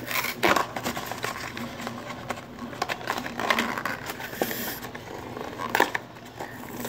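Crinkling and rustling of a trading-card pack's wrapper being handled and opened by hand, with a few sharp crackles.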